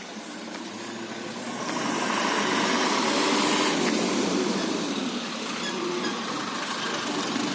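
A motor vehicle passing close by, its engine and tyre noise swelling about two seconds in, peaking, then easing off a little.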